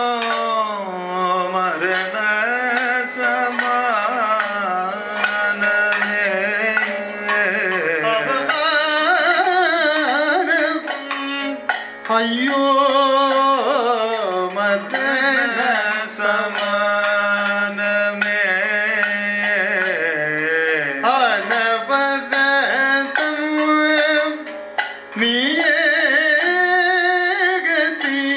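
Live Kathakali music: a male vocalist sings in a Carnatic style with gliding, ornamented pitch, accompanied by drums and sharp, frequent percussion strokes.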